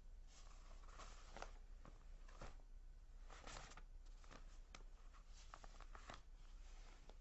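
Faint rustling and scraping of paper as hands handle a thread-bound book, in a string of short, soft strokes.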